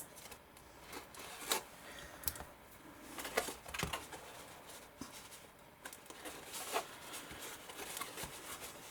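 Cardstock and tape being handled: scattered soft rustles and small clicks as paper tabs are bent and pushed into a seam.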